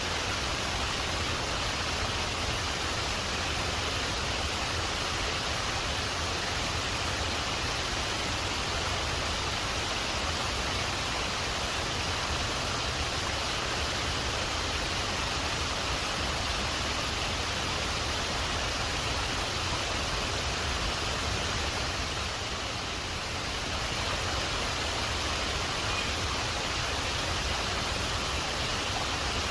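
Waterfall rushing, a steady even roar of falling water that dips slightly about twenty-two seconds in.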